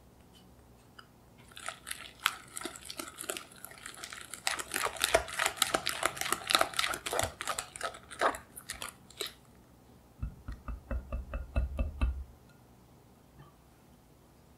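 Wire balloon whisk beating egg into creamed butter and sugar in a glass bowl: fast wet clicking and scraping of the wires against the glass for about eight seconds. A couple of seconds later comes a quick run of dull knocks.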